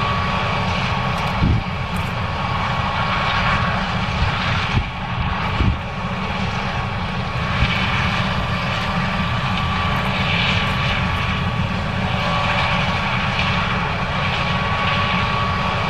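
John Deere S670 combine running steadily while harvesting corn, an even machine noise with a thin steady whine. A few brief knocks stand out over it.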